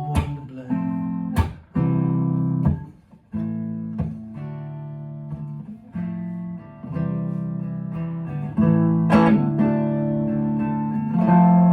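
Mule Mavis guitar played as a solo instrumental passage: chords strummed and left ringing, changing every second or so, with a hard strum about nine seconds in.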